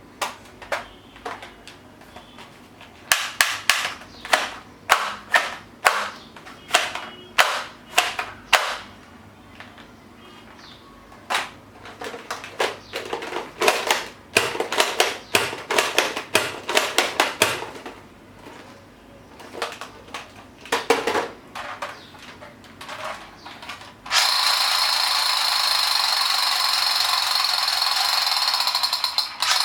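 Toy guns firing and clicking: many sharp clicks and bangs, some single and some in quick runs. About 24 seconds in, a loud continuous electronic buzzing starts, like a toy gun's rapid-fire sound effect.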